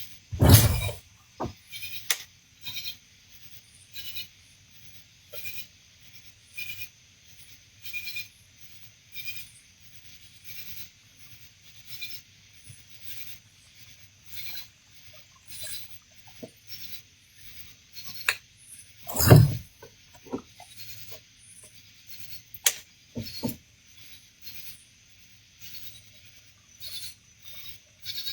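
A buzz bait's spinning blade squeaking in a steady rhythm, about one and a half squeaks a second, as it is reeled across the water's surface. A louder thump comes just after the start and another about two-thirds of the way through.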